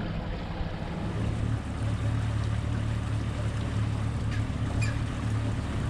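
Boat's outboard motor running slowly at a steady low hum, with wind buffeting the microphone and water washing past the hull.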